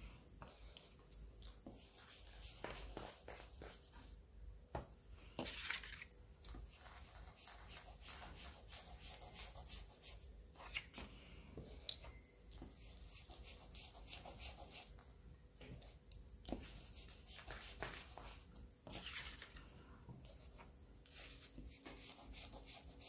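Faint scuffing and dabbing of a foam ink-blending tool, picking up distress oxide ink from a pad and rubbing it along the edges of a paper card, with a few brief louder swishes.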